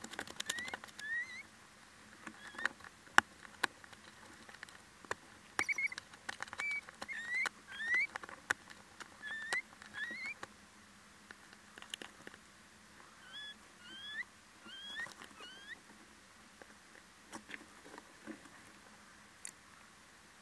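Little owls in a wooden nest box: a long series of short, rising squeaky calls, one every half second to second, that stop a few seconds before the end. Sharp clicks and knocks from claws scratching and shuffling in the wood-chip litter run throughout.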